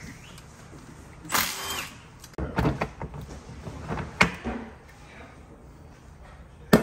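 Tools and metal parts being handled while a Jeep transfer case is taken apart: scattered clunks and clicks, a short burst of noise about a second and a half in, and a sharp metallic knock near the end.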